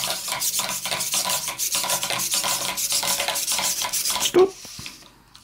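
Bittle robot dog's servo motors whirring and clicking as it steps, its feet tapping on a hard tabletop. A single thump about four seconds in, after which the servo noise dies down.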